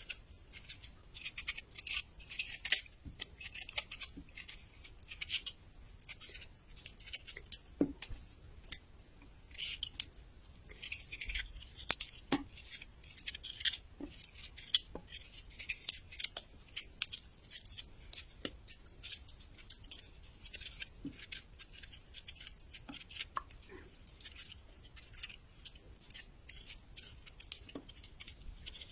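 Close-up chewing of crisp, raw young ginger: a dense, irregular run of short wet crunches.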